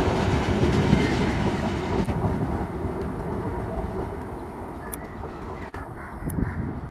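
Indian Railways passenger train passing close and drawing away, its wheels rumbling on the track. The sound is loudest for the first two seconds, then falls away as the train recedes.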